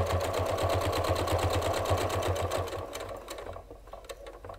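Electric sewing machine top stitching the edge of a fabric coaster, running at a fast, even stitch rate, then stopping about three seconds in; a few faint clicks follow.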